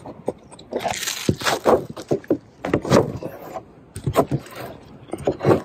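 A wooden stick scraping and dabbing thick black rubberized roof patch onto a corrugated metal roof: a run of irregular scrapes and sticky clicks.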